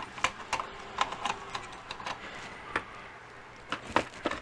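Scattered light clicks and taps of small tools and items being handled and put away, including a tub of soldering flux.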